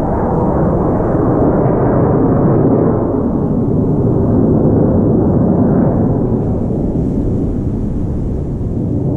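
Jet aircraft flying over in formation: a loud, steady, deep rumble.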